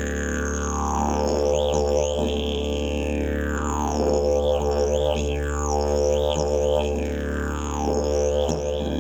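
Hemp-canvas slide didgeridoo played as a steady low drone, with mouth-shaped overtones that sweep down and up in pitch over and over.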